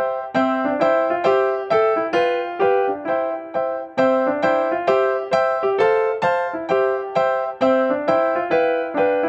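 Background music: a keyboard plays a simple, evenly paced melody of struck notes, about two to three a second, each note fading after it sounds.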